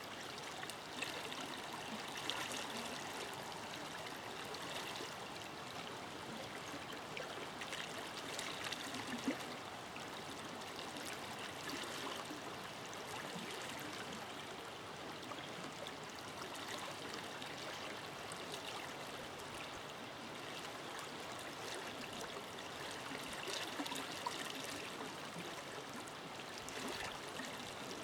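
Forest river flowing steadily over rocks, an even rushing of water with small splashes and gurgles coming and going.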